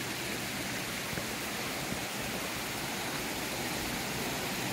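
Small mountain stream running over rocks, a steady rushing of water that grows a little louder toward the end.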